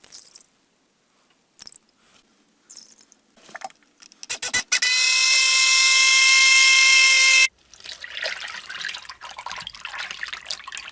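Oil being measured out for soap making: light clicks and handling, then about three seconds of a loud steady hissing whir with a hum in it that cuts off suddenly, followed by softer irregular pouring and handling noise.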